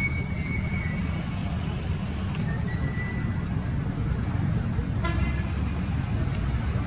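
Steady low background rumble, with a few brief high-pitched tones in the first second and a short, sharp call about five seconds in.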